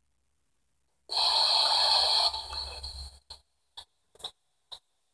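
P-SB7 spirit box sweeping through radio stations. About a second in comes a couple of seconds of loud radio static, which then breaks into short choppy blips of static about twice a second as the box jumps from station to station.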